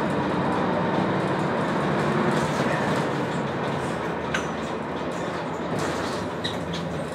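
Jelcz 120M manual-gearbox city bus heard from inside the passenger cabin: a steady engine and drivetrain drone that eases slightly in the second half, with a few short interior clicks and rattles, about four seconds in and again near six and a half seconds.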